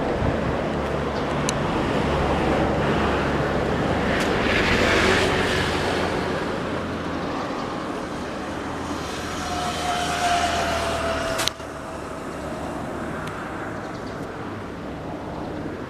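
Outdoor traffic noise: a motor vehicle's engine hum, swelling and easing, with a sudden drop to quieter background about eleven and a half seconds in.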